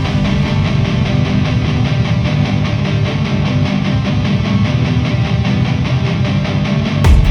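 Background rock music with distorted electric guitar and a steady beat, no vocals; louder drum hits come in near the end.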